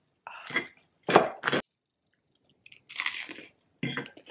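Crisp toast crunching as it is cut into and eaten, in several short crunches with pauses between, the loudest a pair about a second in.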